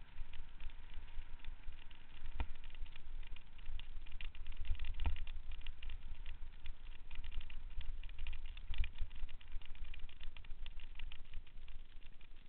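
Mountain bike rolling fast down a dirt trail: tyres crunching and the bike rattling over packed dirt and small stones, with wind buffeting the camera microphone. Two sharper knocks, about two and a half and five seconds in.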